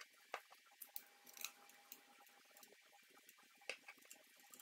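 Faint, irregular clicks and small scrapes of a hand screwdriver driving a small countersunk M3 screw into a 3D-printed plastic part.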